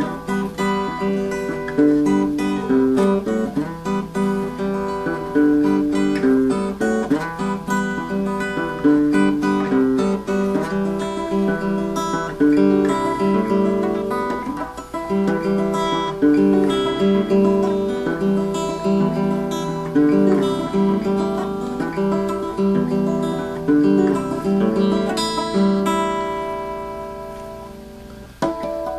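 Solo hollow-body electric guitar playing plucked chords and single notes in a steady rhythm. Near the end a chord is left to ring and fade before playing starts again.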